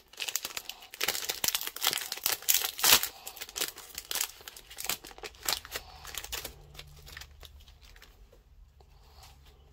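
Foil wrapper of a Pokémon Celebrations booster pack crinkling as a stack of trading cards is slid out of it and handled. It is a dense run of crackly rustles that dies down over the last few seconds.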